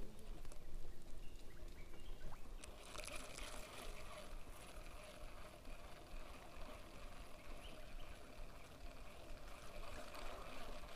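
Baitcasting reel being cranked, winding in line, heard faintly under a steady rushing hiss that turns a little brighter about three seconds in.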